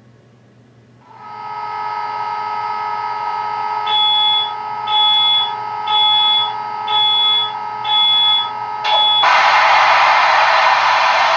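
Sound decoder in an O scale brass SD70 model diesel locomotive playing an engine start-up sequence through its speaker. A steady electric whine comes on about a second in, five high beeps follow about once a second, and then a loud rush of noise as the prime mover starts.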